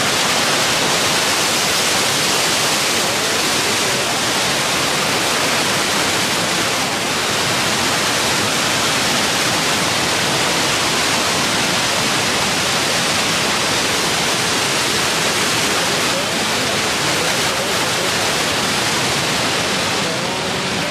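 Waterfall rushing steadily, heard close up from the brink as the water plunges into the pool below.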